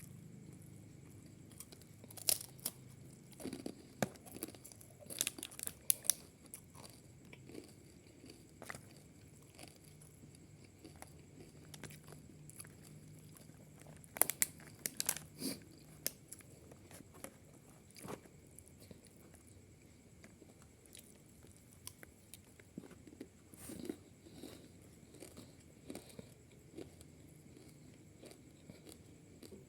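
A person eating close to the microphone: chewing and crunching with bursts of sharp, crisp clicks, clustered a couple of seconds in and again about halfway through, and softer chewing ticks in between.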